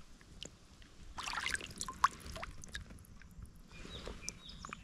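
Small splashes and trickling of shallow creek water around a hand-held brown trout, with a short cluster of louder splashes about a second in.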